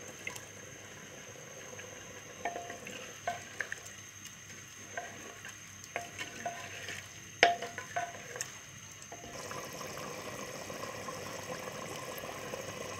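Wooden spoon stirring meat and yogurt in an earthenware cooking pot, with scattered knocks of the spoon against the clay sides. From about two-thirds of the way in, a soft steady sizzling of the cooking meat takes over.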